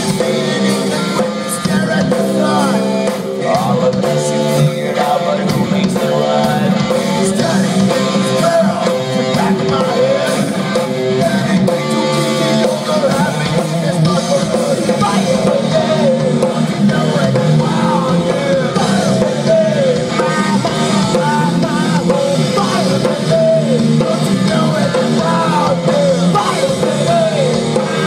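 Rock band playing live: electric guitar, drum kit and singing, steady and loud.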